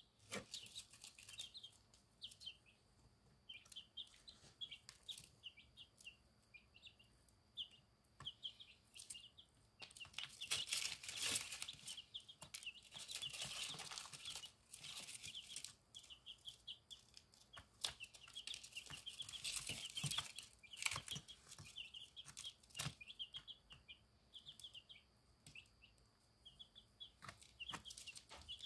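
Silkie chicks peeping softly and steadily, many short high cheeps. Mixed in are pecking clicks and rustling, loudest in two stretches from about ten to sixteen seconds in and again around twenty seconds.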